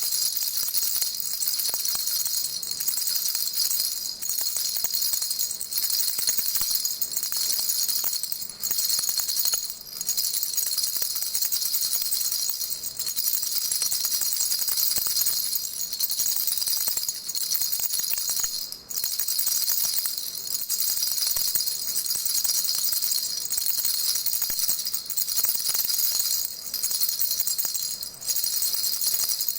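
A baby rattle shaken on and on, a steady high-pitched shaking with a few brief breaks.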